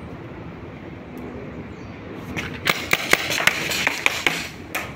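Paintball gunfire: a quick, irregular run of about a dozen sharp pops and smacks of markers firing and balls striking, starting a little past halfway and stopping near the end.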